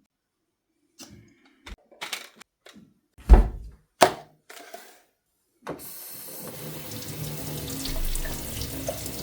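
A few clicks and knocks, with one loud thump about three seconds in, then a tap turned on about six seconds in, water running steadily into a sink.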